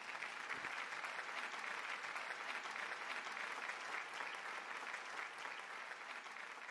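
Audience applauding steadily, tapering off slightly near the end.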